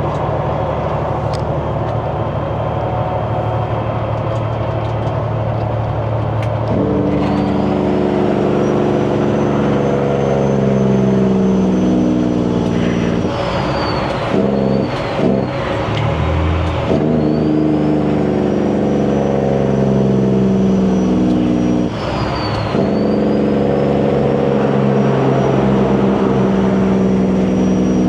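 Diesel engine of a semi truck with 8-inch exhaust stacks, running steadily and then pulling hard as it accelerates up through the gears, with a turbo whistle that rises and falls with each gear. The engine note breaks off and drops at gear changes, twice in the middle and once more a few seconds later.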